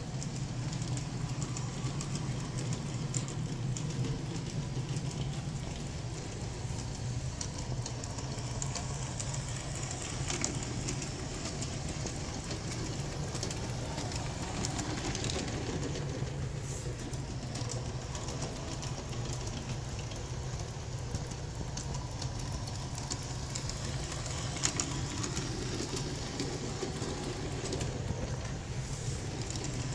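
Aristo-Craft G-scale 0-4-0T locomotive and coaches running on brass track: a steady low drone of the motor and wheels, with light irregular clicking of the wheels on the rails.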